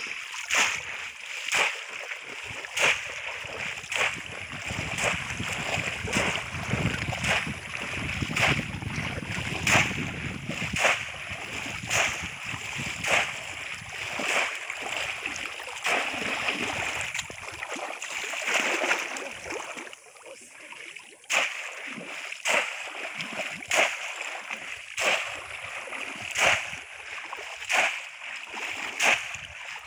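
Shallow pond water splashing as a conical bamboo polo fish trap is plunged down into it again and again while the fisher wades, sharp splashes about once a second over a steady sloshing, with a short lull a little past the middle.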